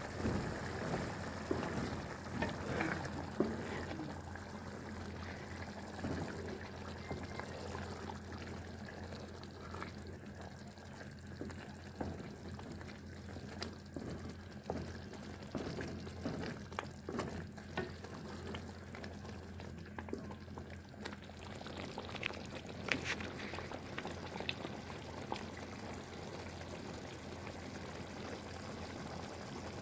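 Liquid pouring and running, with scattered small clicks and knocks over a steady low hum.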